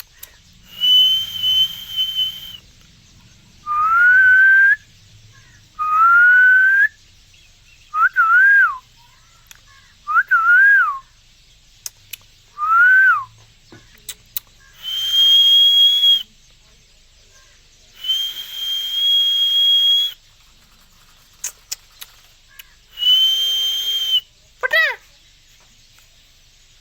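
A series of about nine clear whistled notes with short gaps between them: several long steady high notes held a second or two, and others that glide upward or rise and fall. Near the end comes a short, quickly falling call.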